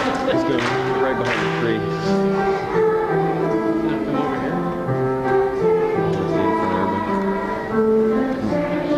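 Music: a choir singing a slow piece in long, held chords that change every second or so.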